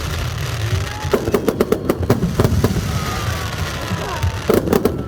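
Aerial fireworks bursting in rapid volleys of sharp bangs over a continuous low rumble, with one dense run about a second in and another near the end.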